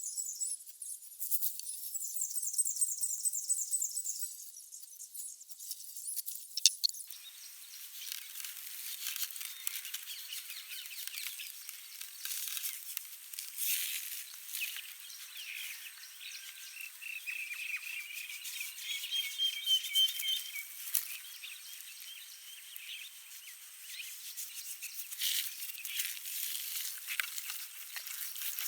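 Small birds chirping in short repeated trills, near the start and again about two-thirds of the way in, over outdoor ambience with many scattered light clicks and crackles.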